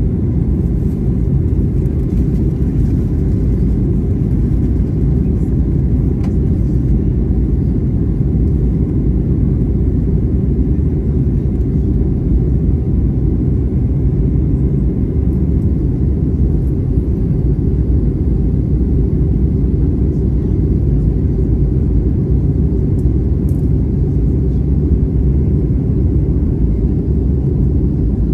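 Steady low rumble of engine and airflow noise inside an Airbus A320neo cabin, heard from a window seat, unchanging throughout.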